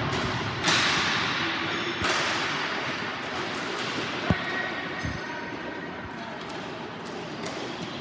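Ball hockey play: sticks and the plastic ball striking, with two loud hits near the start about a second apart, each trailing off in a long wash of noise. A single sharp crack comes about four seconds in.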